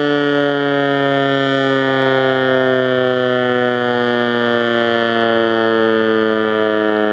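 American Signal T-121 outdoor warning siren sounding a loud, steady alert tone, its pitch sinking slowly.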